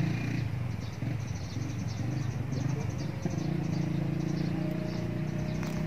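A small engine running with a steady low rumble, with faint rapid clicking high above it.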